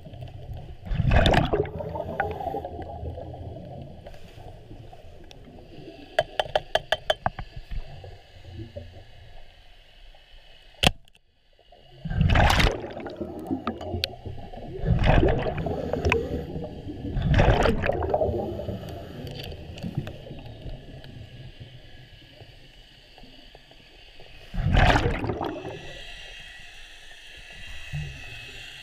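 Muffled underwater sound: a steady low rush of water with several loud swelling whooshes, a quick run of about a dozen clicks around six seconds in, and one sharp snap just before the middle.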